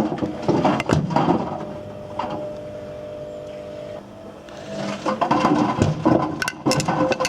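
Whirlpool WWDC 7210/1 washing machine drum turning, with hard objects in the load clattering and knocking inside it. The clatter dies away for a couple of seconds in the middle, leaving a steady motor hum, then starts again.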